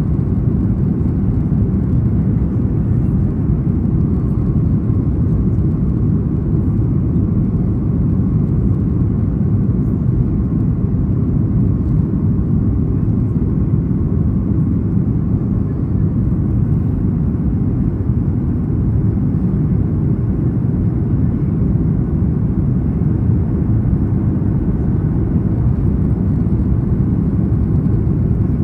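Steady low rumble inside the cabin of a Boeing 737 MAX 8 during descent, from its CFM LEAP-1B engines and the airflow over the fuselage. It holds even throughout.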